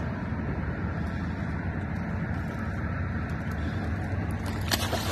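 Boat motor running steadily with a low hum, and a short burst of clicking or rattling near the end.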